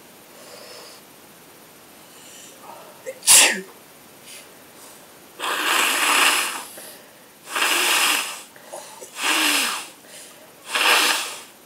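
A sharp sneeze about three seconds in, then four long, forceful nose blows into a handkerchief, each about a second, one after another.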